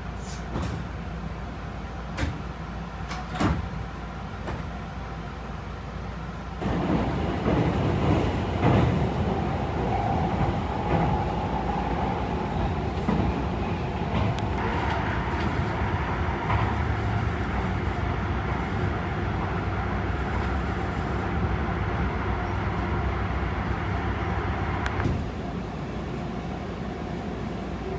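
A Tobu 50090 series electric train running between stations, heard inside the carriage as a steady rumble. A few sharp clicks come in the first few seconds, and the running noise grows clearly louder from about seven seconds in, easing slightly near the end.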